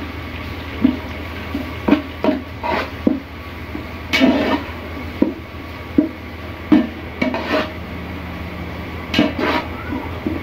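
Metal spatula scraping and knocking against the bottom and sides of a large metal cooking pot as fried onions and garlic are stirred in ghee, in irregular strokes about one or two a second, over a low steady hum.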